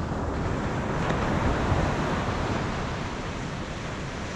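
Ocean surf breaking and washing up a sandy beach, a steady rushing wash with wind rumbling on the microphone.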